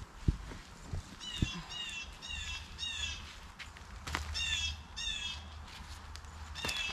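A bird calling in quick series of three or four short calls, about two a second, repeated several times. A few sharp knocks, the loudest just after the start, come from handling soil and buckets.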